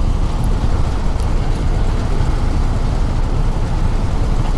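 Steady road vehicle noise: engines running and traffic on a city street, a continuous rumble with no single event standing out.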